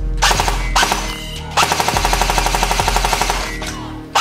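Toy AK-style rifle firing in full-auto bursts: a short rapid burst at the start, then a longer steady rattle of about ten shots a second from about a second and a half in, over background music.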